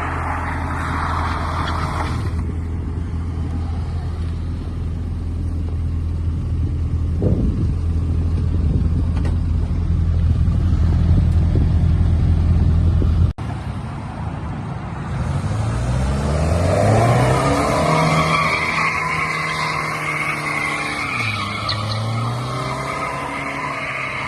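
A Jaguar's engine running steadily under load with the tyres skidding. About halfway through it cuts off abruptly, and in a second clip the engine revs up with a rising pitch, dips briefly, then climbs again.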